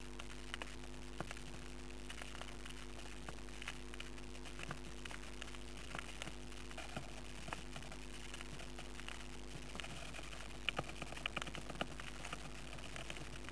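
Steady electrical hum inside a budgerigar nest box, with faint scratching and scattered short clicks from the birds moving about the nest. A cluster of sharper clicks comes near the end.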